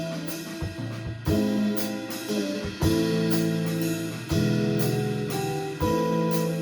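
Amateur band playing live in rehearsal: held chords over drum-kit hits, with a strong accent about every second and a half and no singing.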